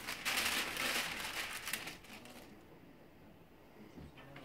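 A thin sheet of paper rustling and crinkling as it is handled and smoothed flat over a T-shirt on a heat-press platen. It goes quiet after about two and a half seconds.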